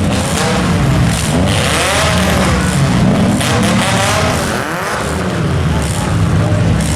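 Several compact demolition derby cars' engines revving, their pitches rising and falling over one another over a steady low engine rumble.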